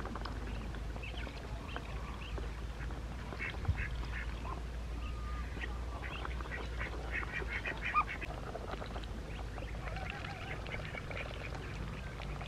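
Ducks quacking: a run of short, repeated calls that bunch into quick flurries, with a brief thump about four seconds in.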